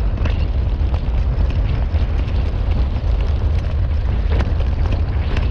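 Steady low rumble of a dryland dog rig rolling along the trail at speed, with wind buffeting the microphone and a few faint ticks.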